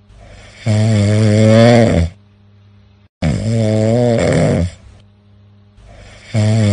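Snoring: three long, pitched snores in a steady rhythm, about three seconds apart, each lasting about a second and a half, with quieter gaps between.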